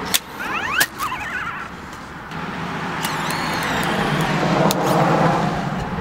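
Parrot Jumping Sumo robot's small electric wheel motors whining in quick rising spurts, with a few sharp clicks, as it drives in short starts. About two seconds in, a longer stretch of motor and wheel noise on the asphalt builds up and grows louder.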